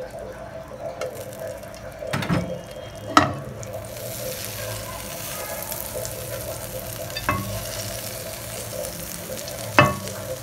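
Butter melting and sizzling in a hot oiled metal frying pan on a gas burner, the sizzle growing stronger a few seconds in. A few sharp knocks as the pan is moved.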